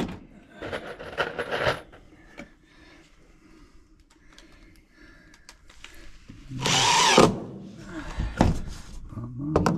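Cordless power driver sinking a long wood screw into a pine 2x4 floor block. It runs in two short bursts, one about a second in and a louder one about seven seconds in.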